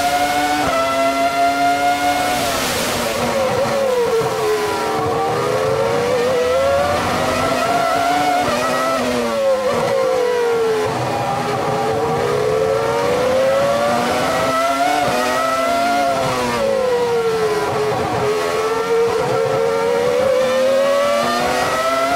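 Onboard sound of a 2005 Minardi PS05 Formula 1 car's 3.0-litre Cosworth V10 at racing revs, the pitch dropping through downshifts into the corners and climbing back through the gears on the way out, three times over. Near the end it rises again as the car accelerates onto the straight.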